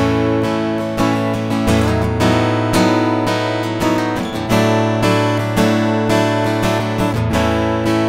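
Yamaha LL16 ARE acoustic-electric guitar with chords strummed about once a second. It is heard as the dry direct signal from the guitar, with no amp mic modelling or effects.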